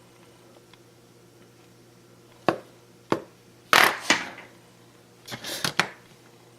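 Wire cutters trimming tinned wire on a workbench: two sharp snips about half a second apart, then a louder clatter of small tools handled, and a short cluster of clicks near the end.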